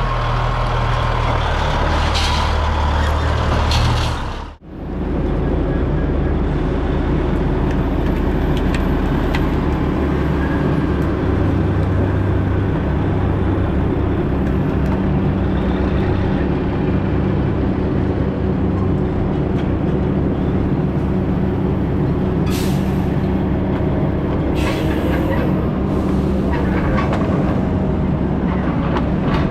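Heavy logging machinery engine running steadily under load, with a brief break about four and a half seconds in. Short hisses sound a couple of times near the end.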